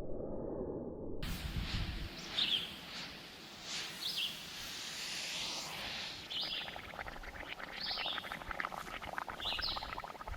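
A bird chirping outdoors: five short, separate calls about a second and a half apart over outdoor background noise. From the middle on there is a faint, dense crackling.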